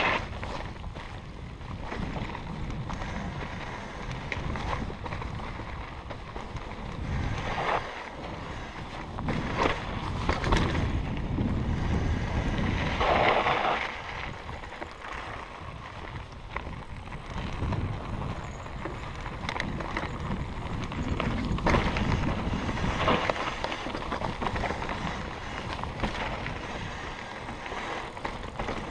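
Wind rushing over the microphone with the rolling noise of mountain bike tyres on a dirt trail and occasional rattles from the bike, swelling louder about halfway through.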